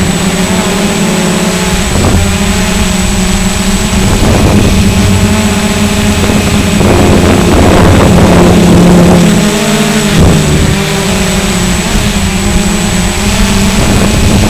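WLToys V686G quadcopter's motors and propellers buzzing steadily in flight, their pitch shifting a little as the throttle changes. Gusts of wind noise swell over it, loudest about seven to nine seconds in.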